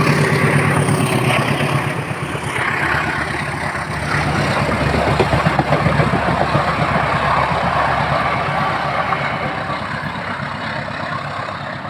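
Passenger train hauled by a CC201 diesel-electric locomotive passing close by: a low engine drone, then the steady rumble and clatter of the coaches' wheels on the rails, fading gradually over the last few seconds.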